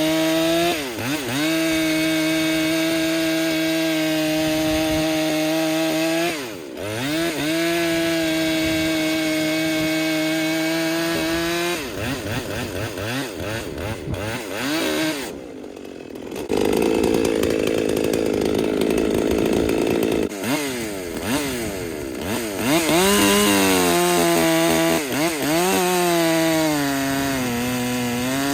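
Husqvarna 257 two-stroke chainsaw running at high revs cutting firewood. Its engine note dips and recovers several times as it loads up in the wood, and it eases off for a few seconds about halfway through.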